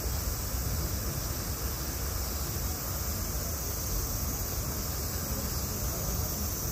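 Steady high-pitched drone of insects, unbroken, over a low rumble like wind on the microphone.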